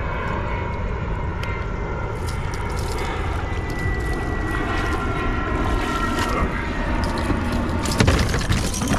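A steady engine drone with a low rumble, its faint whine slowly falling in pitch like a passing engine. A few sharp knocks come near the end.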